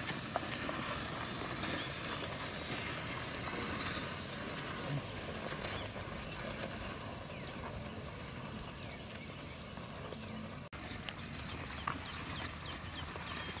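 Cows pulling a plough through a field: a steady hiss of outdoor noise with scattered light knocking steps, and one sharp click about eleven seconds in.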